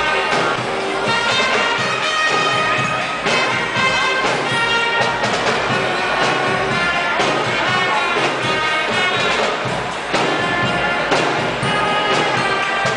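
Marching band playing live, its brass section of trumpets, trombones and sousaphone sounding a tune in held notes.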